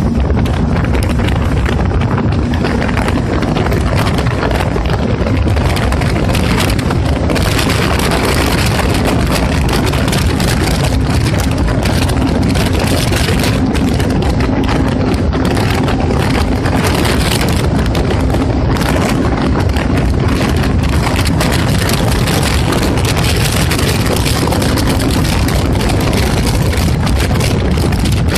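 Jet ski running at high speed over choppy water: a steady engine drone under heavy wind rush on the microphone and water noise.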